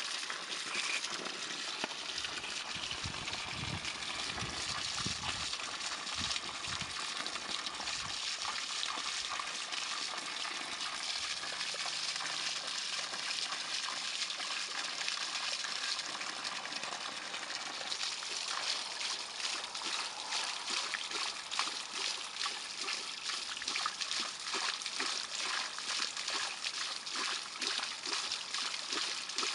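Well water gushing steadily from an outlet pipe and splashing, as a Leonberger dog drinks, lapping and biting at the stream. The splashing turns choppier in the second half.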